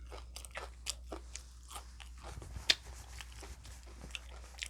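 A person chewing and biting hash browns: irregular small crunches and wet mouth clicks, with one sharper crunch a little under three seconds in.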